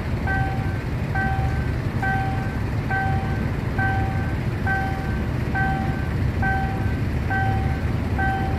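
Railroad level-crossing warning signal sounding, a short electronic tone repeating about once a second with the barriers down, warning that a train is approaching. Beneath it is a steady low rumble.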